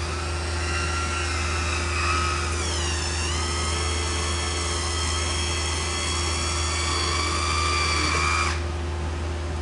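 Electric wine opener's motor whirring as it works the cork out of a wine bottle. The whine dips in pitch about three seconds in, then runs steady until it cuts off suddenly near the end.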